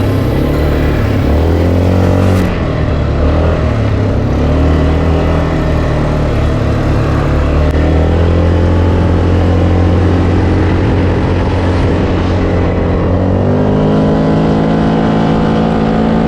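ATV engine running hard and revving up and easing off as it is ridden fast over rough sand, its pitch rising and falling several times.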